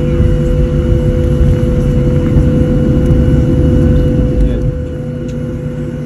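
Cabin noise inside a Southwest Boeing 737 taxiing: a steady jet-engine drone with a constant tone over a heavy low rumble, which eases off about five seconds in.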